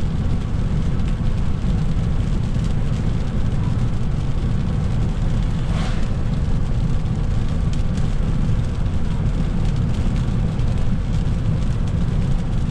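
Steady low road and tyre rumble of a car driving on wet pavement, heard inside the cabin, with one brief swish about six seconds in.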